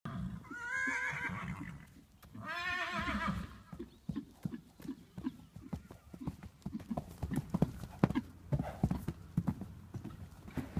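A horse whinnying twice, each call over a second long with a wavering pitch, followed by the hoofbeats of a three-year-old gelding cantering loose on a sand arena: a steady run of dull thuds.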